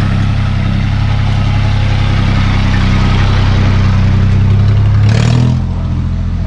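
Farm tractor's diesel engine running as it passes close by, with a combine harvester's engine ahead: a loud, steady engine hum that drops a little in pitch about five seconds in, with a brief hiss at that moment.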